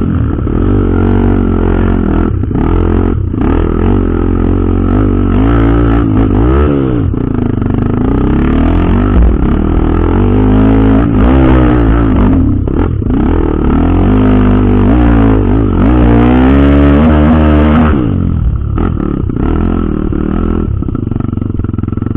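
Off-road trail motorcycle engine running under way, its pitch rising and falling again and again as the throttle is opened and closed. It is loudest shortly before the end, then drops back a little.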